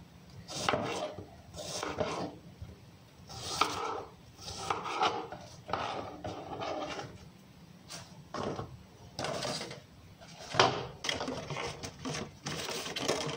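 Food-packing handling noises: on-and-off rustling and rubbing with light knocks of plastic containers and packaging, the sharpest knock about ten and a half seconds in.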